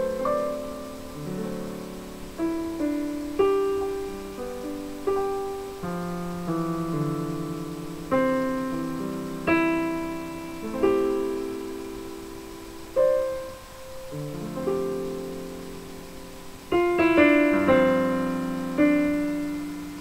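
Piano played with both hands: a slow melodic piece of ringing chords and single notes, with a quicker cluster of notes about seventeen seconds in.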